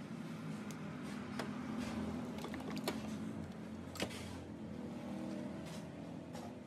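Light clicks and knocks from hands working wiring connectors and parts in a car's engine bay, with the sharpest clicks about three and four seconds in, over a steady low hum.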